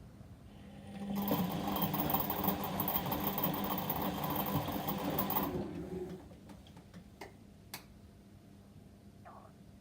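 Whirlpool washing machine's motor turning the drum on a delicate wash cycle: a steady whir with a low hum starts about a second in, runs for about five seconds and winds down. A few faint clicks follow near the end.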